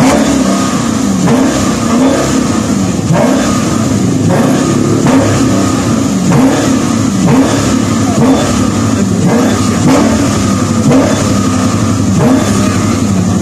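Dodge Challenger SRT's HEMI V8 revved again and again while standing still, its exhaust rising and falling in quick throttle blips about once a second.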